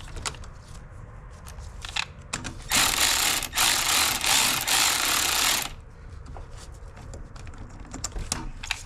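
Power tool running in three short back-to-back bursts, about three seconds in all, tightening a hose clamp on the intercooler piping; light clicks of tools and parts being handled come before and after.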